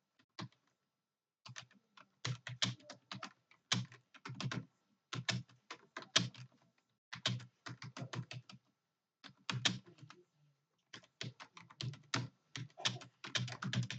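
Computer keyboard being typed on in quick flurries of keystrokes, each burst of clicks about a second long, separated by short pauses.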